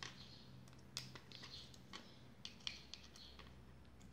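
Faint, scattered small clicks and scrapes of a small screwdriver working the screws that hold a three-wire brushless motor to its arm, as the motor is taken off.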